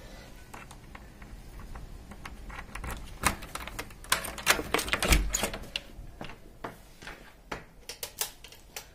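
A run of sharp clicks and knocks, most of them in the middle of the stretch: hotel-room light switches being flicked on and off in the dark while the lights do not come on.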